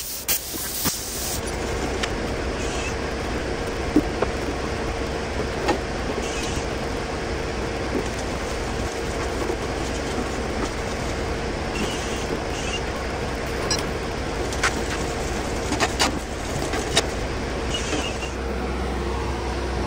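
Steady shop machinery noise: a low drone with a faint steady tone, and scattered sharp metallic clicks and knocks. A hiss at the start stops about a second and a half in.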